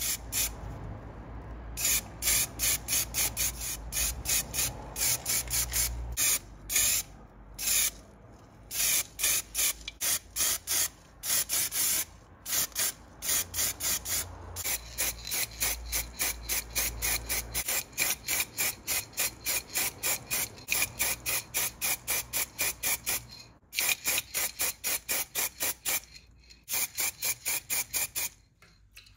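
Paint being sprayed onto a stripped diecast model car body and its small parts, for the primer and colour coats. The spray hisses in short, rapid bursts, about three or four a second, in runs broken by brief pauses. A low rumble comes and goes underneath.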